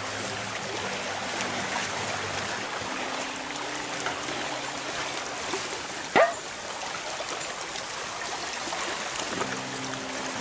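Steady rushing of a fast-flowing river. About six seconds in there is one short, sharp sound that falls in pitch.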